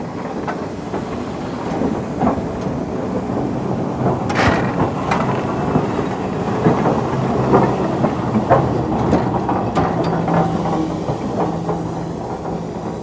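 JNR C62 steam locomotive (2C2, 4-6-4) rolling past at track level: wheels and rods clattering over the rails with repeated sharp metallic clicks and knocks, a loud clank about four and a half seconds in, over steam hissing from the cylinders.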